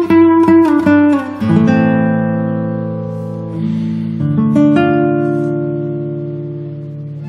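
Guitar music: a run of quickly picked notes, then two chords, each left ringing and slowly fading.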